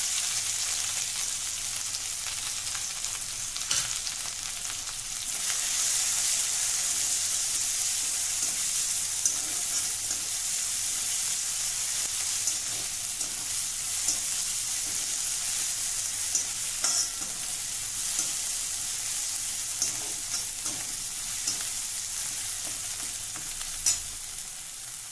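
Green chilli, cumin and garlic paste sizzling in hot oil in a steel kadhai, stirred with a metal spatula that clicks and scrapes against the pan now and then. The sizzle gets louder about five seconds in.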